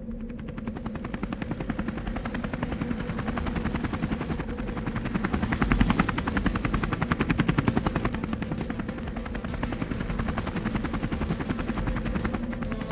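Quadcopter drone's propellers spinning up and flying, a fast, even chopping buzz that swells to its loudest about six seconds in.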